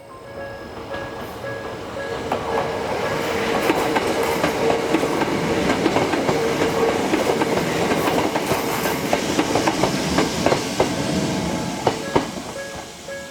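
A Hakone Tozan Railway electric train passing over the level crossing, wheels clacking over the rail joints with a steady whine through the middle of the pass. The crossing's electronic warning bell rings in a fast repeating pattern, heard clearly near the start and again near the end as the train noise dies down.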